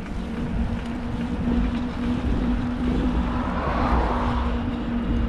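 Wind rumbling on the microphone over a steady low hum, with a soft hiss that rises and fades about three to four and a half seconds in.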